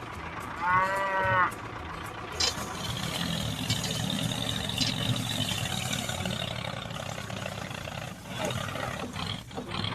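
A short pitched tone, like a horn or a call, about a second in. Then, from about two and a half seconds in, a small motor of a DIY mini tractor model starts and runs steadily with a high whine, easing off near the end.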